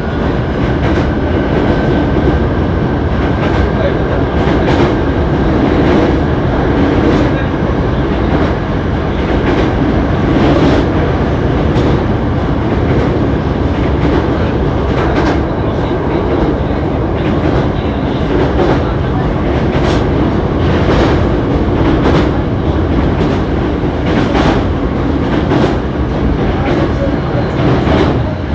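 Hankyu 7300 series electric train car running at speed, heard from inside the car: a steady rumble and hum with a faint whine, and irregular clicks from the wheels over rail joints. This car is known for an unusual running noise.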